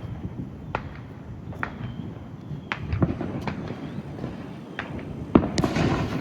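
Fireworks going off: scattered sharp pops, then a louder bang about five seconds in followed by a brief rush of crackling noise.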